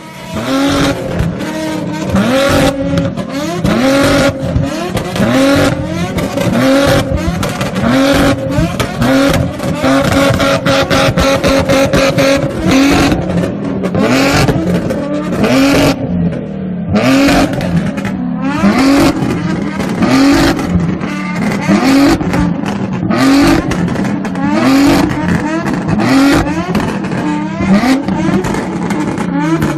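A car engine revved hard again and again, its pitch climbing roughly once a second, with loud exhaust pops and bangs between the revs, typical of an anti-lag or flame-tuned exhaust.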